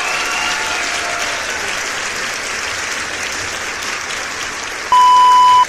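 Crowd applauding, an even clatter of clapping. About five seconds in, a loud steady beep cuts in and holds for most of a second.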